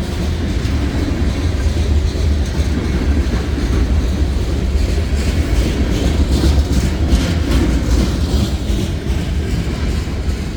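Freight train rolling past at close range: a steady rumble of steel wheels on the rails, with clicking as the wheels cross rail joints.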